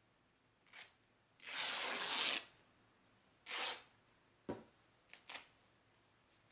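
Cloth skirt being torn apart by hand: one long rip of about a second, then a shorter one, followed by a few light knocks and rustles of the fabric on the wooden table.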